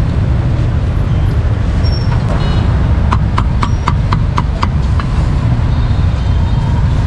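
A cleaver chopping a piece of grilled braised pork on a round chopping board: a quick run of about seven sharp, ringing chops about three seconds in. Under it is a steady low rumble of street traffic.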